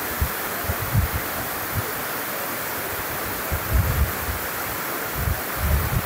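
Steady rushing of a waterfall, with wind buffeting the microphone in low, irregular thumps now and then.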